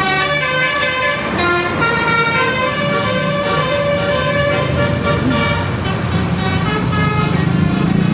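Indonesian telolet bus horn playing a multi-note tune, its tones stepping from note to note, over the low running of a bus engine that grows louder near the end.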